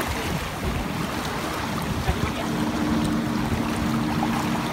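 Shallow sea waves washing around the rocks of a breakwater, with wind buffeting the microphone. About halfway through, a steady low hum of two tones joins in.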